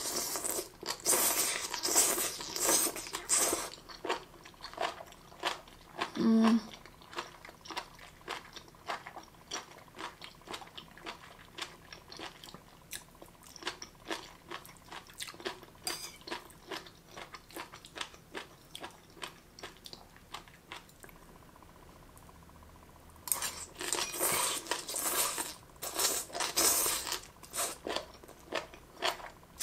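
Close-miked chewing of marinated jellyfish, which is crunchy. There are dense crunching bites at the start and again about 23 s in, with soft, rapid chewing clicks between.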